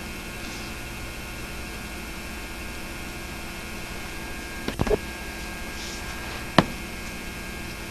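Steady electrical hum and hiss on the soundtrack between narration, with a short cluster of clicks a little before halfway and one sharp click later.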